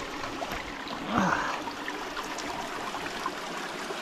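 Small mountain headwater stream running over rocks, a steady rush of water. About a second in, a short louder sound briefly rises over it.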